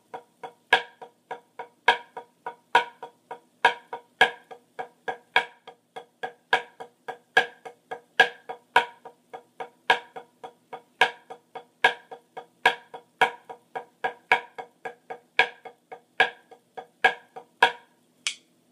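Pair of drumsticks on a rubber drum practice pad playing an accent-tap warmup: loud accented strokes about twice a second with softer taps between, in an even, steady rhythm.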